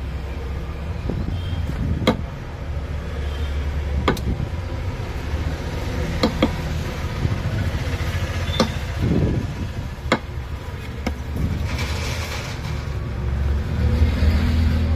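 Steady low rumble with sharp clicks every second or two: soldering iron and tools tapping against the phone's board as the charging port pins are soldered, and a brief hiss about twelve seconds in.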